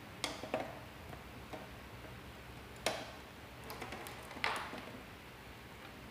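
Oscilloscope probe and patch-cord plugs being handled and pushed onto the terminals of an op-amp trainer panel: several sharp plastic-and-metal clicks and taps, the loudest about four and a half seconds in.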